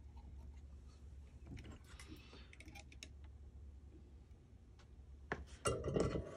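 Small clicks and taps of soldering tools and tweezers against the eyelet board of a vintage tube amp chassis, over a low steady hum. A cluster of louder, sharper clicks comes about five seconds in.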